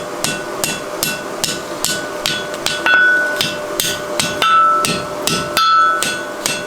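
Hammer striking hot mild steel on an anvil in steady, evenly paced blows, about two to three a second, with the anvil ringing between strikes: forge welding a collar onto a round bar.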